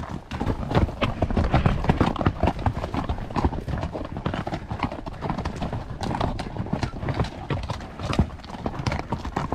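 Horses' hooves clattering on hard trail ground in a quick, irregular run of strikes as the horses climb a steep section.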